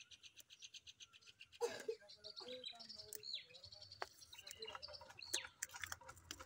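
Faint small birds chirping and trilling, high and quick. A single sharp knock-like handling sound comes about a second and a half in, with light scraping and clicks as a key is worked against the tape of a cardboard phone box.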